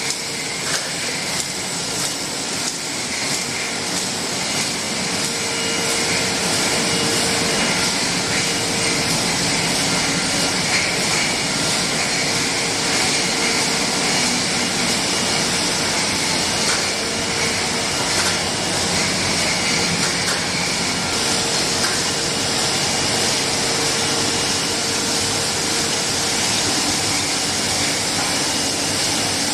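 Bottle shrink-sleeve labelling line running: a steady machine hiss and whir with a faint hum underneath.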